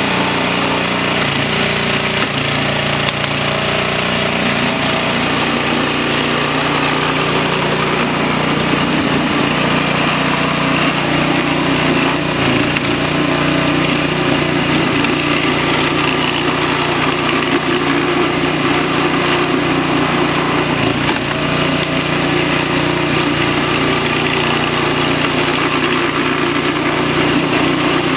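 Hail coming down hard: a loud, dense, unbroken clatter of hailstones striking hard surfaces, with a steady low hum underneath.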